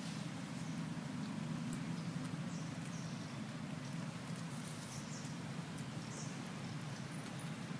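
Outdoor ambience: a steady low hum with scattered faint high chirps and light ticks.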